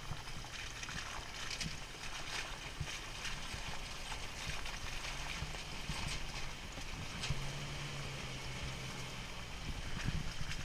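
Jeep Wrangler crawling along a rough dirt trail: low engine hum with tyres crunching over dirt, leaves and twigs, and scattered knocks and clicks from the trail and the body.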